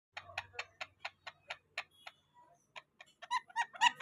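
Indian ringneck parrot making a quick run of sharp clicks, about four or five a second, then a few short pitched chirps that grow louder toward the end.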